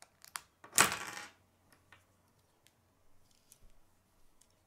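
Hard plastic K'nex pieces being handled and fitted together: a few quick clicks, then a louder rattle lasting about half a second about a second in, followed by faint light clicks.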